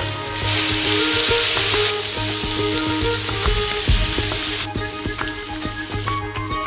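Marinated chicken pieces sizzling in hot butter on a ridged grill pan as they are laid in and turned with tongs; the sizzle swells about half a second in and drops back near five seconds.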